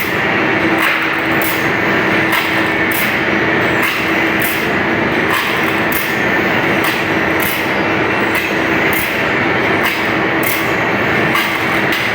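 Band saw blade sharpening grinder running: a steady machine hum and grinding hiss, with a short sharp stroke repeating evenly about every 0.7 seconds as the blade is worked tooth by tooth.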